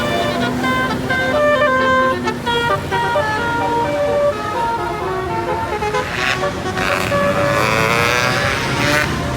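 Indonesian 'telolet basuri' multi-tone bus horn playing a quick tune of short stepped notes. For the last three seconds or so, a noisy wash of sound joins the notes.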